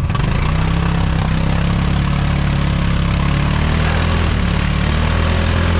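ATV engine running steadily, coming in just after the start and holding an even pitch.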